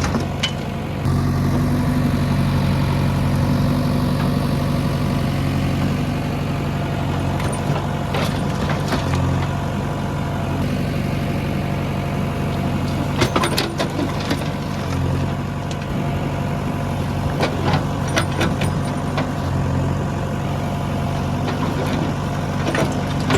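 Diesel engine of a JCB 3DX backhoe loader running steadily, with several sharp metallic knocks and clanks at intervals.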